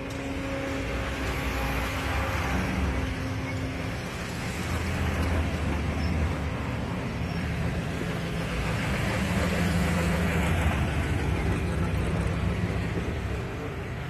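Classic American cars driving slowly past one after another, their engines running at low speed, the sound swelling as each car goes by.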